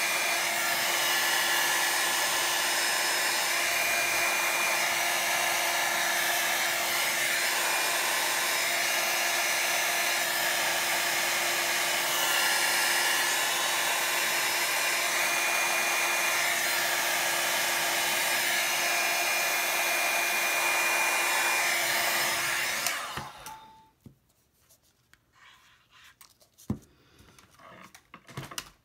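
Revlon hair dryer blowing steadily, a rush of air with a steady hum under it, switched off about four-fifths of the way through. A few faint clicks follow.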